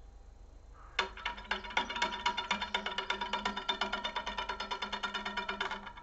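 Wooden toy woodpecker tapping its way down a thin metal rod in stick-slip motion: a rapid, even tapping, about eight to ten taps a second, with the rod ringing under it. It starts about a second in and stops just before the end, as the bird reaches the base.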